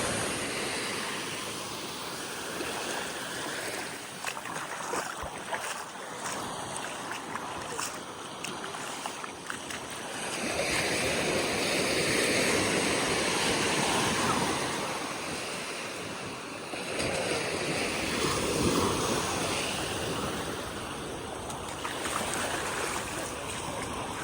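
Ocean surf breaking and washing ashore in slow swells, louder surges coming about ten seconds in and again a little past the middle, with some wind on the microphone.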